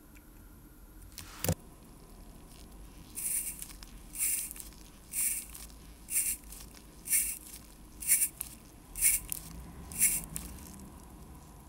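A single click, then a hand-squeezed rubber air blower giving eight short hissing puffs about one a second, blowing dust off the watch movement.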